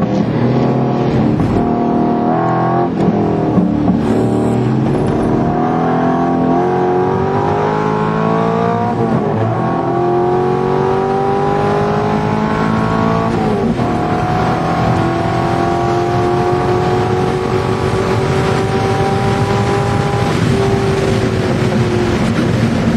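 Corvette V8 race engine heard from inside the cockpit under hard acceleration. Its pitch climbs slowly through each gear and drops sharply at each upshift, about nine and fourteen seconds in, with another drop near the end.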